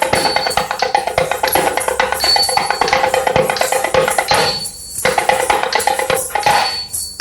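Thavil drumming: a rapid run of sharp, cracking strokes over a steady held drone. The strokes break off briefly twice, about two-thirds of the way through and again near the end.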